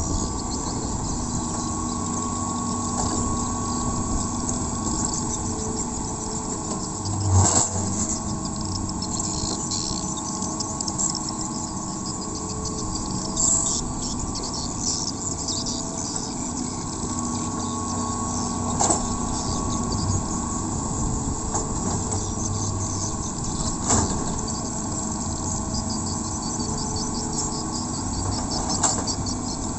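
Hitachi EX200LC crawler excavator's diesel engine running steadily under work. A sharp knock comes about every five seconds as the bucket works the soil.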